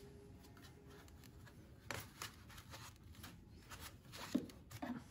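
Light handling noise of a figure accessory being lifted out of a box's packaging tray: a few soft clicks and scrapes, with one sharper knock about four and a half seconds in.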